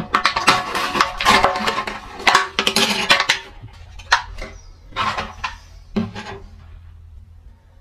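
Hard tool scratching and clicking against a dinosaur dig egg, fast and dense at first, thinning after about three seconds to a few single taps about a second apart.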